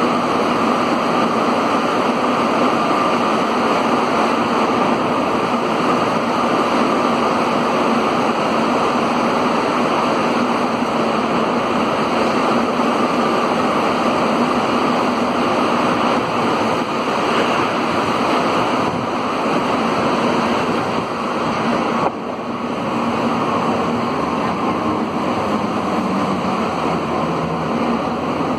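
Cabin noise of a Concarril NS-88 rubber-tyred metro train running at speed through a tunnel: a loud, steady rush with a constant hum underneath. The noise drops a little about three-quarters of the way through.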